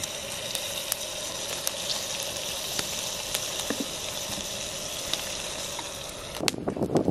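Wood campfire burning with a steady hiss and scattered sharp crackles. A little over six seconds in, louder and denser crackling and popping begins.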